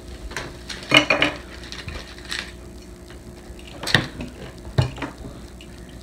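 Hard plastic construction-toy bricks clicking and clattering as pieces are handled and pressed together, a handful of sharp clicks, the loudest about a second in and about four seconds in. The pieces are hard to press on.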